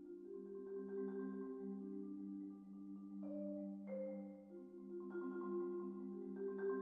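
Concert marimba played with four yarn mallets: sustained chords in the lower-middle register, with a couple of higher notes entering about three and four seconds in.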